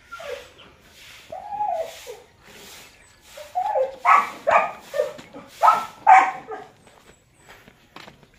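A dog barking: one drawn-out yelp about a second in, then a quick run of about seven barks in the middle.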